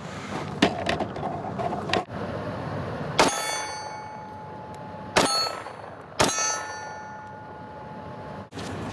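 Four pistol shots from a Glock spread over several seconds; after the second and the fourth, a struck steel target rings with a clear tone that dies away over about two seconds.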